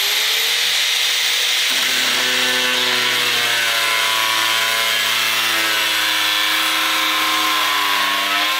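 Festool AGC 18 cordless angle grinder with a cutoff wheel cutting through threaded rod: a steady, loud, hissing grind, with the motor's pitched whine coming in about two seconds in and wavering slightly as the wheel bites.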